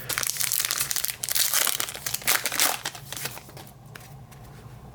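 Trading card pack wrapper being torn open and crinkled: a crackling rustle for the first two to three seconds, then fainter handling.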